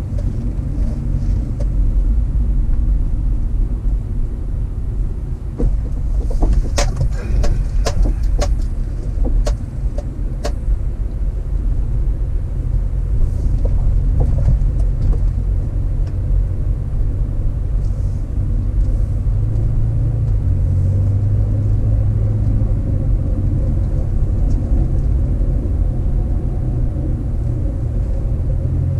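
A car driving, a steady low road rumble, with a run of sharp clicks and knocks about six to ten seconds in.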